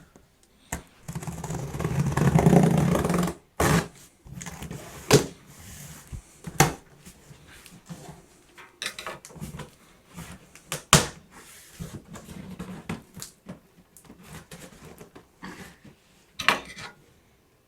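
A cardboard box being opened and handled: a loud rasping, rustling noise for about two seconds near the start, then scattered knocks and taps of cardboard flaps and packaging.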